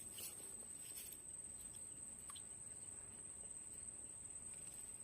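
Insects trilling in a steady, high-pitched, unbroken chorus, with a few faint ticks.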